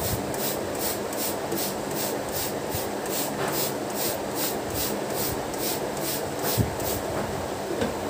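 Hand-pumped trigger spray bottle spritzing liquid onto a chocolate sponge cake layer to soak it: a quick, even run of short hissing sprays, about three a second, stopping about seven seconds in.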